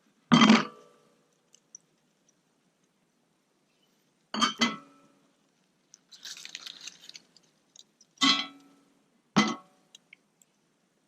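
Cookware or utensils knocking together, four sharp clinks with a short ringing tail, one of them doubled, and a brief scraping about six seconds in.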